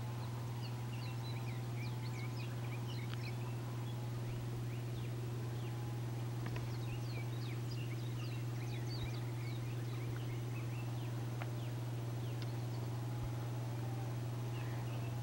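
Small birds chirping over and over in short, quick calls, over a steady low hum.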